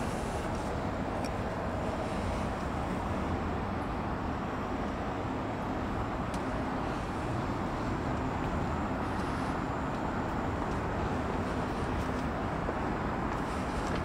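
Steady low rumble of distant city traffic, even in level with no distinct events.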